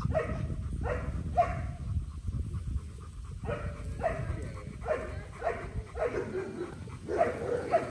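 Doberman whimpering in short, repeated pitched cries, about two a second with a pause around two seconds in, while locked in a copulatory tie during mating.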